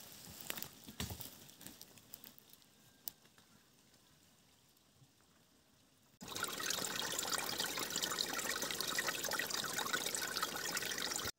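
Steady rush of running or pouring water, starting suddenly about six seconds in and cutting off abruptly near the end. Before it come a few light clicks and rustles, then near quiet.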